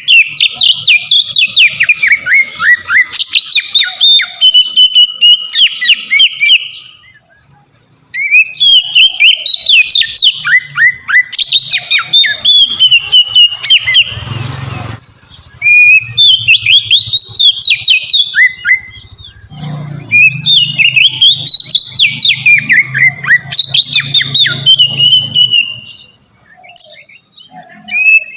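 Oriental magpie-robin (kacer) singing a long, free-flowing song of rapid, varied whistles that sweep up and down, in long phrases broken by a couple of short pauses. There is a brief rustle of noise about halfway through.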